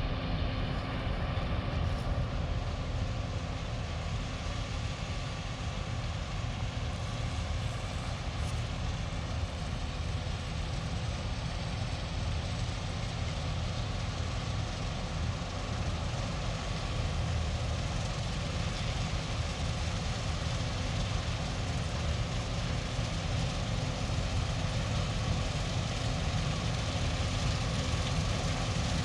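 Combine harvester running steadily while cutting soybeans, a constant machine drone with a few held tones over it.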